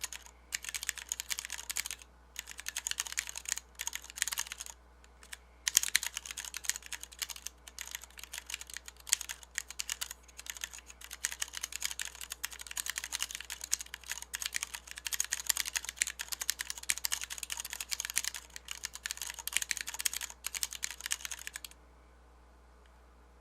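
Fast continuous typing on a Massdrop Planck mechanical keyboard with Cherry MX Brown switches, a milled aluminum case, steel plate and PBT DSA keycaps: a dense stream of key clacks with a few brief pauses early on. The typing stops a couple of seconds before the end.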